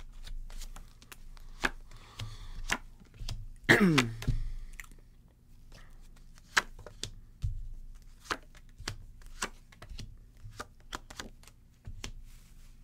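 A deck of tarot cards shuffled and handled, with irregular sharp clicks and rustles, and cards laid down on a cloth-covered table. About four seconds in, a short hum falls in pitch.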